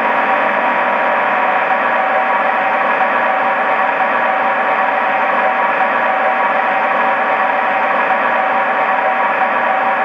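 The sound decoder of an LGB G-scale BR 139 electric locomotive model plays its engine-on running sound through the model's loudspeaker: a steady electric whir with a constant hum.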